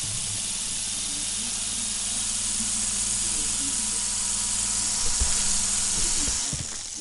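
Kyosho EGG Neon Messenger toy helicopter's small electric motor and rotor whirring as a steady high hiss over a low hum while it hovers. A few low knocks come about five to six seconds in, and the whir fades away near the end as it comes down.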